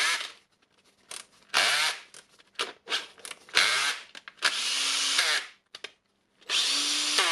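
Repaired DeWalt DCD780 cordless drill running in several short trigger bursts. Its brushed motor spins up and winds down each time, with one longer run about halfway through. The drill is working again after the repair.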